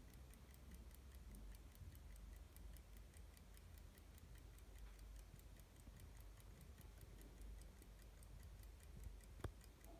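Lorenz Static desk clock ticking faintly and quickly, about five even ticks a second. A single sharper knock stands out near the end.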